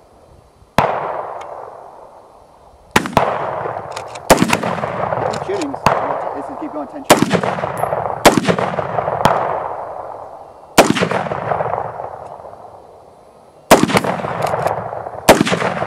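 Shotgun fired again and again, about ten shots irregularly one to three seconds apart, each followed by a long fading echo.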